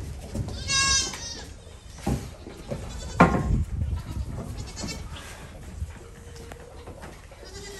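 Pygmy goats bleating: one loud, high bleat about a second in and fainter bleats later, with a sharp knock about three seconds in.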